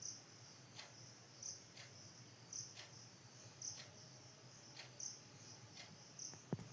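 Near silence with a faint high chirp repeating about once a second, like a chirping insect.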